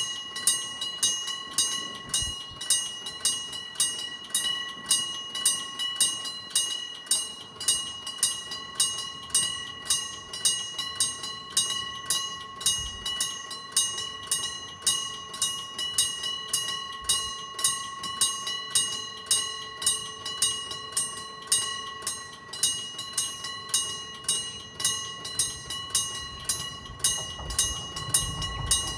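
Japanese railroad crossing warning bell starting suddenly and ringing its repeated 'kan-kan' strikes at an even pace: the crossing signal warning of an approaching train. A low train rumble builds near the end.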